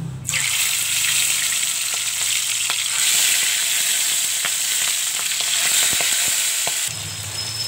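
Marinated milkfish (bangus) pieces frying in hot oil in a pan: a loud sizzle that starts suddenly as the fish hits the oil and eases off near the end. A few light clicks of tongs run through it.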